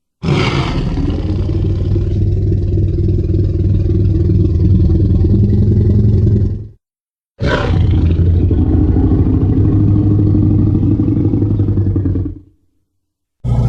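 Two long monster roar sound effects, each five to six seconds long, opening with a harsh, bright attack and settling into a deep, sustained growl. A short silent gap separates them.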